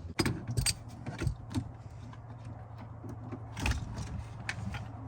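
Metal clicks and clinks of a 14 mm socket wrench on a seat belt anchor fastener as it is broken free and loosened. They come at irregular intervals, about half a dozen, with the loudest just after the start and again near the middle.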